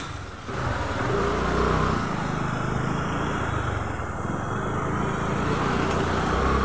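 Motor scooter engine running as it rides along a road, with steady road and wind noise. It comes up about half a second in.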